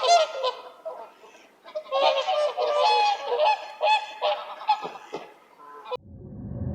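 A group of waterfowl calling, many short overlapping calls in two bouts with a brief lull between. Near the end the sound cuts to a steady low rumble.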